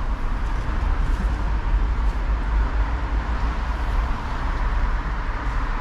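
Steady outdoor noise of road traffic: a constant hiss over a low rumble, with no single event standing out.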